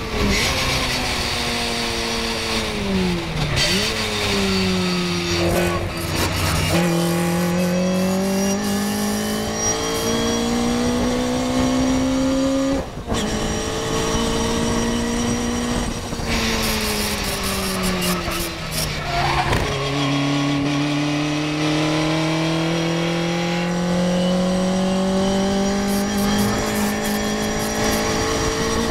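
Onboard sound of a Morgan race car's small engine at racing speed: the engine note drops twice as the car brakes and shifts down for corners, and climbs in between under hard acceleration, with an upshift about 13 seconds in. Wind rushes over the car throughout.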